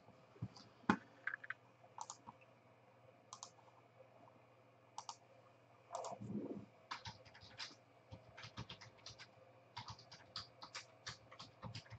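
Faint typing on a computer keyboard: scattered key clicks, coming faster and thicker in the second half, with a soft thud about six seconds in.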